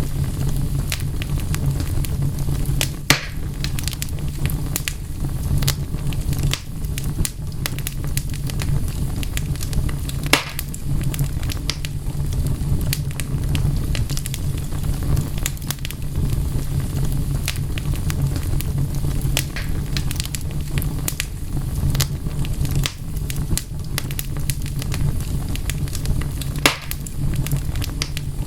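Wood fire crackling: a steady low rumble of flames with many sharp pops and snaps, the loudest about 3, 10 and 27 seconds in.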